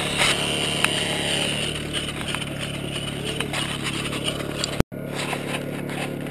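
Small gasoline engine driving a gold dry washer's blower, running steadily at one speed, with a few sharp clicks of stones in the first second; the sound drops out for an instant about five seconds in.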